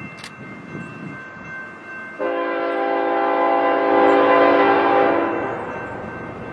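Freight locomotive horn sounding one long blast of several notes at once. It starts suddenly about two seconds in over the low rumble of the train and fades away past the middle.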